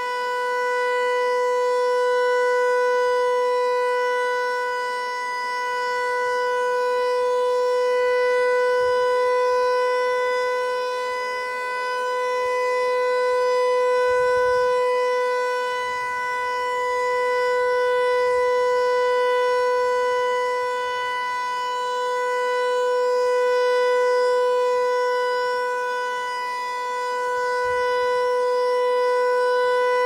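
Federal Signal Eclipse 8 outdoor warning siren sounding a steady alert tone on one unchanging pitch, its loudness swelling and fading about every five to six seconds.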